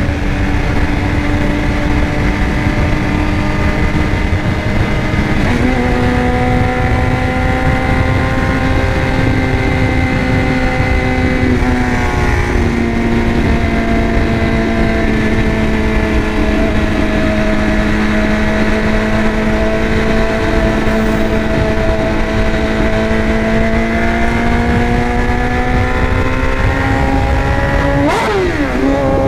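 BMW S1000RR's inline-four engine running at steady, fairly high revs under way, over a constant rushing noise. Its pitch shifts slightly a few times, with a quick drop and rise near the end.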